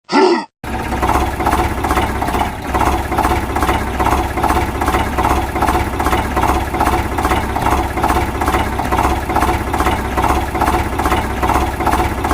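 A vehicle engine running steadily at idle with an even chugging pulse, about three beats a second, over a low hum. It is preceded by a short rising sound right at the start.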